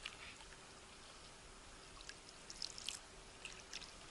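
Faint trickling and dripping of water around a small rowing boat, oar blades dipping with light splashes; a cluster of sharper splashes comes nearly three seconds in.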